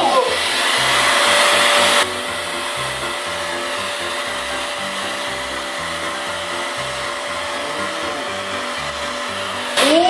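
Vacuum cleaner running with its front attachment removed, drawing air through the bare hose end: a steady rushing noise with a faint whine. It drops in level about two seconds in, then runs on evenly.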